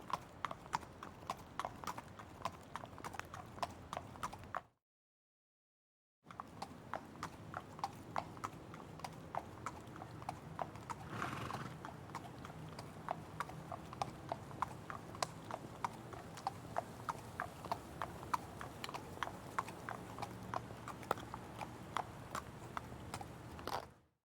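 Horse hooves clip-clopping at an even walking pace, about three to four strikes a second. After about four and a half seconds the sound drops out to silence for a second and a half, then hooves at a walk resume, with a short breathy noise from the horse near the middle, and the track cuts off just before the end.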